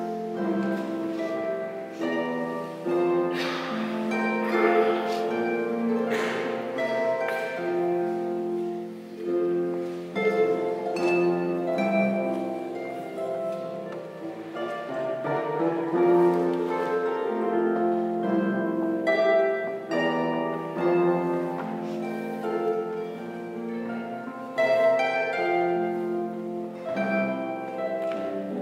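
Solo harp playing a Bavarian folk tune: a plucked melody over chords, with the notes left to ring.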